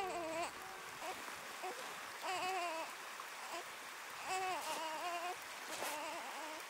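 A baby crying in short, wavering wails with pauses between them, over a faint steady hiss.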